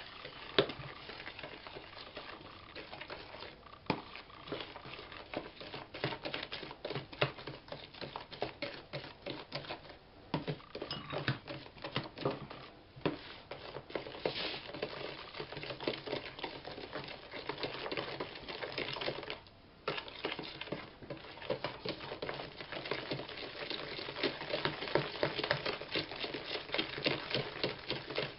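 A spoon stirring sugar into a runny yeast-and-egg batter in a plastic bowl, with quick, irregular clicks and scrapes of the spoon against the bowl and a brief pause about two-thirds through. The batter is being stirred until the sugar dissolves.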